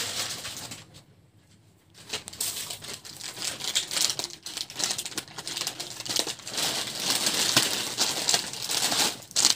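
Foil snack packets crinkling as they are handled and cut open with scissors, with a short lull about a second in.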